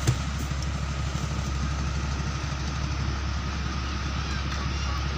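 Outrigger boat's engine idling steadily, a low continuous hum with a fast low pulse. A single short knock sounds right at the start.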